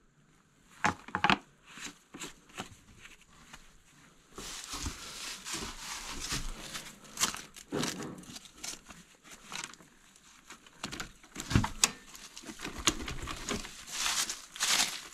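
Rustling and crinkling of dry leaves and debris, with scattered sharp clicks and knocks, as gloved hands handle a dusty dirt bike. The loudest clicks come about a second in and again two-thirds of the way through.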